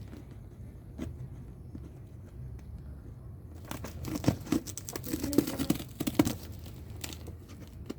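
Packaging being torn open and crinkled by hand: a single click, then after a few quiet seconds a run of sharp, uneven crackles and rustles.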